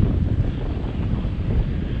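Wind buffeting the microphone of a camera worn by a parascending pilot in flight: a loud, steady low rumble of rushing air.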